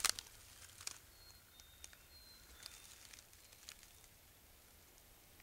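Faint rustling and crackling of a damp dry-grass tinder bundle being handled around a hand-drill coal, with a brief louder rustle at the start and a few soft crackles about a second apart. A bird chirps faintly a few times.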